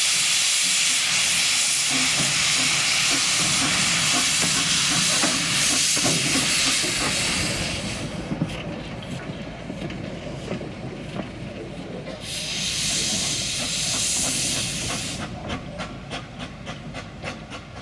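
Small steam tank locomotive moving off slowly, hissing loudly with steam venting from its open cylinder drain cocks. The hiss stops about eight seconds in, comes back for about three seconds around the twelve-second mark, and near the end gives way to a run of quick, evenly spaced clicks as the engine draws away.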